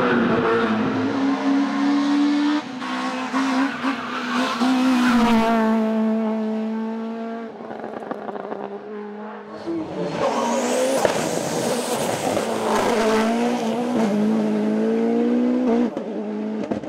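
Racing car engines at full throttle on a hillclimb, changing gear. The engine note falls away around the middle, climbs again, and cuts off sharply near the end.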